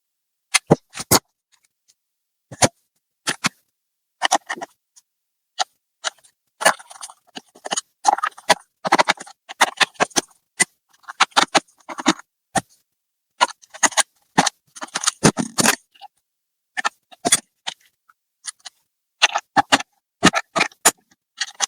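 Clicks, taps and short scrapes of tools and metal and plastic parts being handled while a laptop is taken apart, in irregular bursts that come thickest in the middle.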